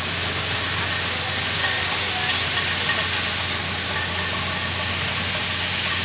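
Tractor-driven corn sheller running: a steady, loud rushing hiss with a low hum underneath.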